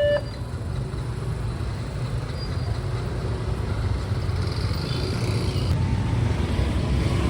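Road traffic engines running as a continuous low rumble that slowly grows louder. A level-crossing electronic alarm tone cuts off just after the start.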